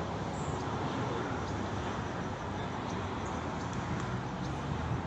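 Steady road traffic noise: a continuous hum of cars passing on the street.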